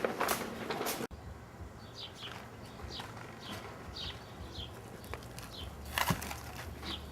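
Small birds chirping, short high chirps that fall in pitch, about two a second, after an abrupt cut about a second in. A single sharp knock comes near the end.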